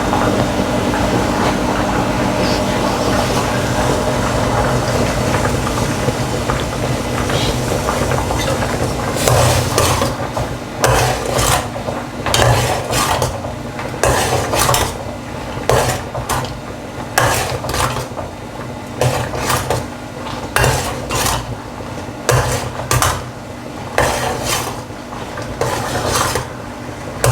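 A metal spoon stirring and scraping rice payasam in a pot, in regular strokes roughly once a second from about a third of the way in, over a steady hum.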